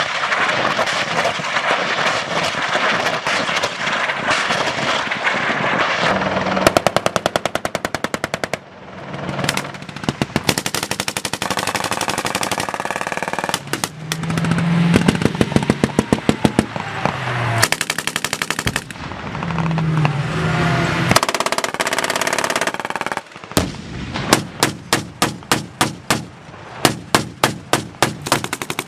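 Belt-fed machine guns firing long, rapid strings of automatic fire, then separate sharp shots or very short bursts, about three a second, near the end.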